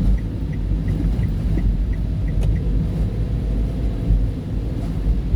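Low, steady rumble of a car driving, heard from inside the cabin, with a light regular ticking about three times a second that stops a little over two seconds in.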